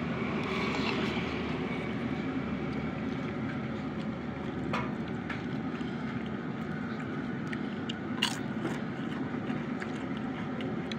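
Fork and spoon scraping and clicking against a plate of noodles, with a couple of sharp clinks, over a steady background hum.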